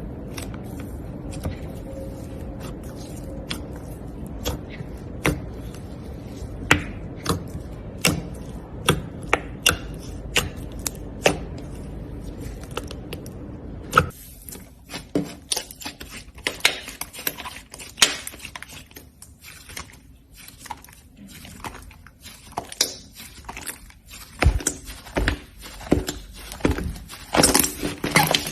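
Slime being squeezed and pressed, giving off sharp pops and clicks over a low steady hum. About halfway through the hum stops, and the clicking turns into a denser crackling that grows busier near the end.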